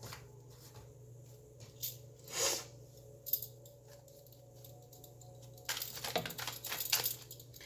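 Tarot cards being handled and shuffled: a few light taps and a soft swish, then about a second and a half of rapid flicking and rustling near the end as a card is drawn.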